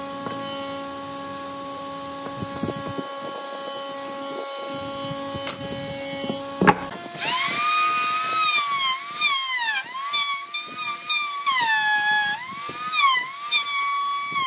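A bandsaw runs with a steady hum while cutting a curved wooden blank. About seven seconds in, a handheld router takes over, trimming the wood's edge; its whine dips in pitch and recovers again and again as the bit loads and frees in the cut, over a patter of flying chips.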